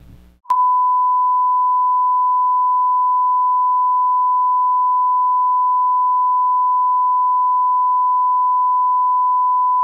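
Censor bleep: one steady pure tone that cuts in abruptly about half a second in and holds unbroken, blanking out a spoken story.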